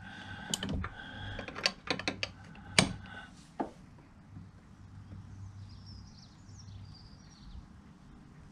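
Sharp metal clicks, about seven at irregular intervals over the first few seconds, from a spanner and socket wrench tightening the lower engine mount bolt and nut. Faint bird chirps come in about halfway through.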